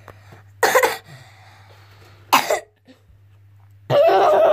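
Two short, sharp puffs of breath, like coughs, about two seconds apart, then a louder pitched sound lasting about half a second near the end.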